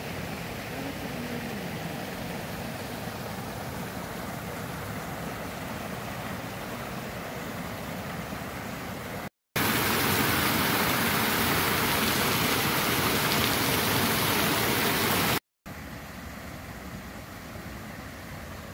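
Water pouring from a pipe onto a small water-wheel pump and splashing off the wheel: a loud, even rush for about six seconds in the middle, cut in and out abruptly. Before and after it, a quieter steady rushing noise.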